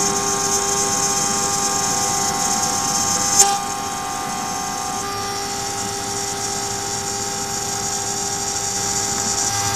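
CNC router spindle running at high speed while a small end mill cuts a slot into an aluminium plate: a steady whine of several tones over the noise of the cut. One sharp tick comes about three and a half seconds in, after which the sound is slightly quieter.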